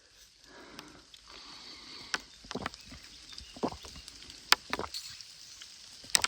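Footsteps through forest undergrowth: leaf litter and twigs rustling and crunching, with irregular sharp snaps of sticks.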